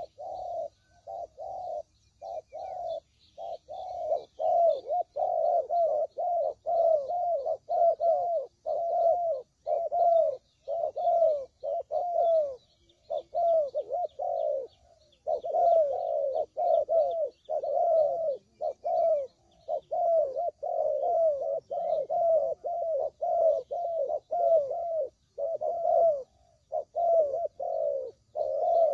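Spotted doves cooing over and over, a close run of low coos at about two a second with a few brief pauses, over faint high chirping of small birds.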